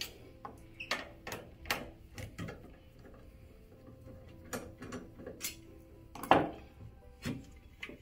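Clicks and metal knocks from a screwdriver backing out the screws in an espresso grinder's feet and the steel bottom plate being lifted off, the loudest knock about six seconds in. Faint background music underneath.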